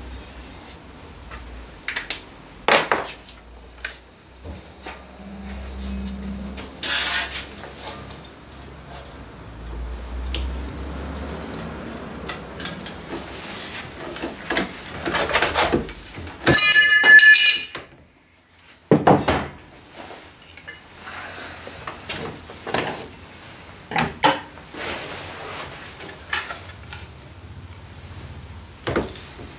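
Sheet steel and hand tools being worked into a small repair patch: scattered metallic clinks, knocks and clatter. A little past halfway comes a loud ringing metal clang lasting about a second.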